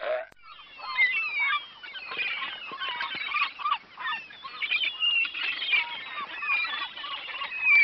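A flock of seagulls calling, many short rising and falling cries overlapping in a dense chorus.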